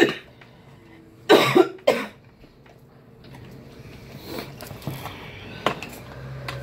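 A person coughing two or three times in quick succession, about a second and a half in. Afterwards a few faint clicks and rustles from eating at the table.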